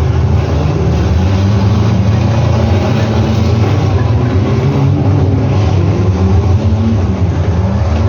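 Demolition derby cars' engines running loudly and revving, their pitch rising and falling.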